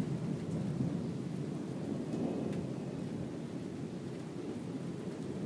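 Thunderstorm: a low, steady rumble of thunder with rain, swelling slightly about two seconds in.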